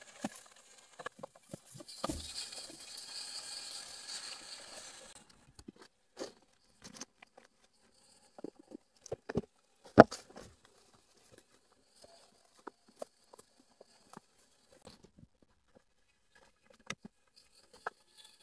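Rustling and crunching in dry leaf litter and undergrowth, with scattered snaps and crackles as leafy stems are plucked and handled over a woven basket. A hissy stretch of brushing through foliage in the first few seconds cuts off suddenly, and one sharp snap about ten seconds in is the loudest sound.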